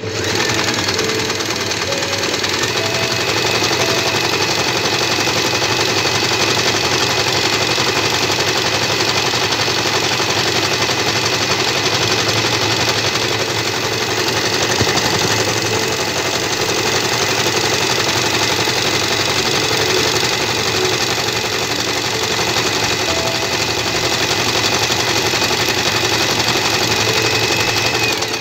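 Usha Allure electric sewing machine running steadily at speed, its needle stitching a decorative pattern over ribbon lace fed through a braiding foot.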